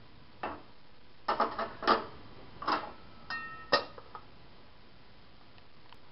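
Aluminium lid clanking against a steel cooking pot as it is set on to cover it: about half a dozen sharp metallic knocks over three and a half seconds. One knock rings on briefly, and the loudest comes near the end.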